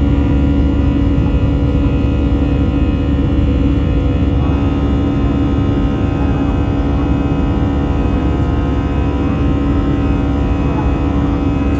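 Airbus A320's jet engines running steadily during the climb after takeoff, heard inside the cabin by the wing: a loud, even rush and rumble with a strong low hum and several steady whining tones.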